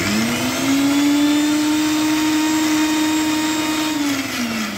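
Electric mixer-grinder with a steel jar starting up and running at full speed, blending grass shoots with amla water into juice. Its steady whine sets in sharply, then falls as the motor is switched off and winds down about four seconds in.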